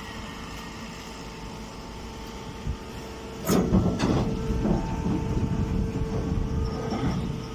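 Silage baler machine running with a steady hum, then a louder, irregular clattering and knocking starting about three and a half seconds in and easing off near the end.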